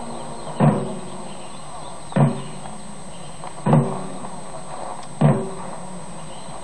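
A slow, even drum beat: four low strokes, one about every second and a half, each dying away quickly over a faint steady background.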